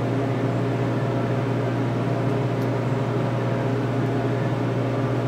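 Steady low mechanical hum of a running motor, unchanging in pitch and level.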